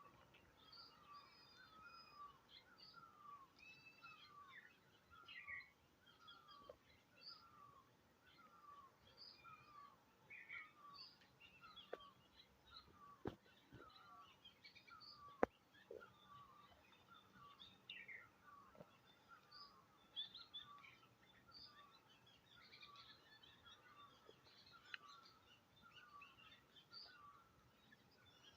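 Faint outdoor birdsong: one bird repeats a short falling note about once a second while other birds chirp higher and irregularly. A few sharp clicks stand out, the loudest about halfway through.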